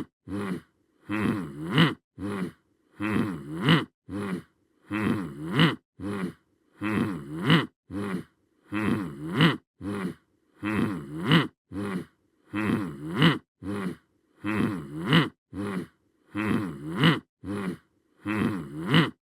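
A voice-like groaning sound effect repeating in a loop about every two seconds: a brief grunt, then a longer groan that rises and falls in pitch.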